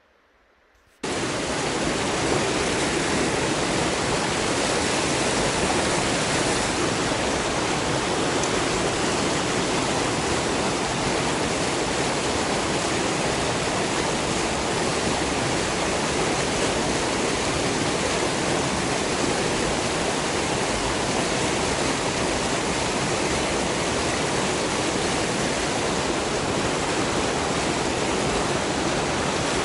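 River water rushing over boulders in a small cascade: a loud, steady rush that starts suddenly about a second in, after near silence.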